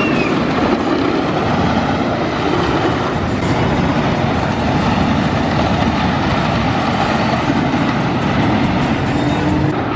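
A train on the White Lightning wooden roller coaster running along its wooden track: a loud, steady noise of wheels on the track that goes on without a break.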